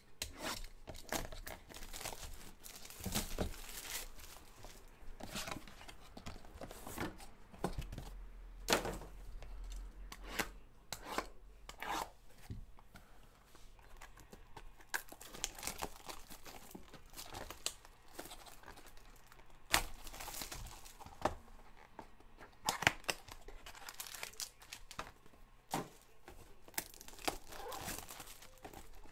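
Plastic wrapping of a 2017 Panini Absolute football card box and its packs being torn open and crinkled by hand: a steady run of irregular crackles and rips, with a few louder sharp snaps in the second half.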